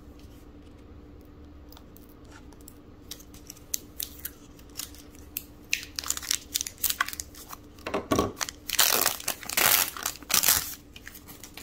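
Plastic casing of a Renuzit gel air freshener being worked apart in the middle: scattered small crinkles and clicks, then several loud tearing, crinkling rasps in the last few seconds as the halves come apart.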